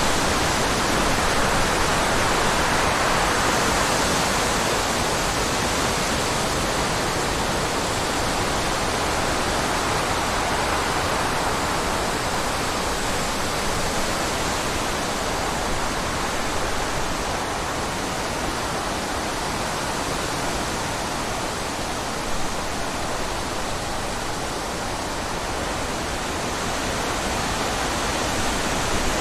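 Steady rushing water: an even hiss that slowly swells and eases, with no music over it.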